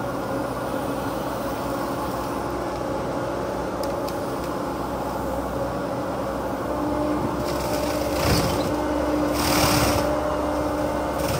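Menzi Muck walking excavator's diesel engine and hydraulics running steadily while working a flail mower head. About seven seconds in the engine note strengthens under load, with two short, louder rushing bursts near the end.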